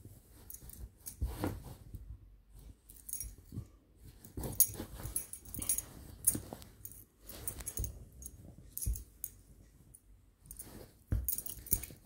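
Small dog rolling and wriggling on its back on a fabric couch blanket: irregular bursts of rustling and scuffing, with a few soft thumps.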